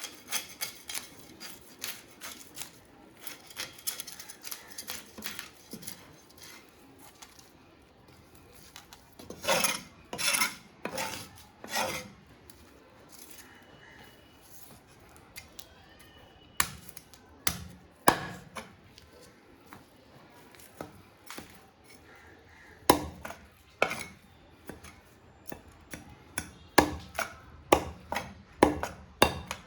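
A blade scraping and cutting a large hilsa fish: rasping strokes and scattered clicks, with a run of four loud rasping strokes about ten seconds in. Later come sharp chopping knocks against wood, getting quicker, about two a second near the end.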